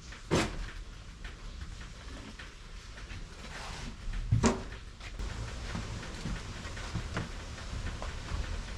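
Knocks and thumps of junk being handled and moved. Two sharp knocks stand out, about half a second in and about four and a half seconds in, with lighter knocking between them.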